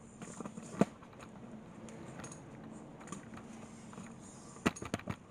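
Wood stove fire crackling as a sawdust-filled cardboard box burns on the embers: scattered sharp pops, one loud one about a second in and a quick run of several near the end.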